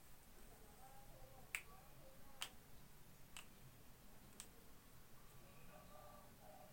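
Four short, sharp clicks about a second apart against near-silent room tone, the first the loudest.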